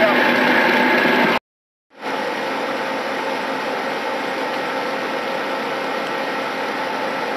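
Dry cement mortar spraying machine running steadily with a continuous mechanical hum. The sound cuts out abruptly about a second and a half in and comes back half a second later, a little quieter.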